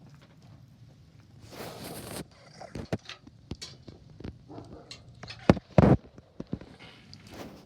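Knocks and clunks from tending a wood stove: a short rustle, then a series of sharp knocks, the loudest two close together a little past halfway.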